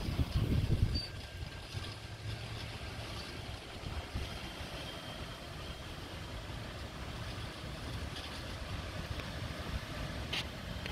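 Wind gusting on the phone's microphone for about the first second, then a faint steady outdoor rumble.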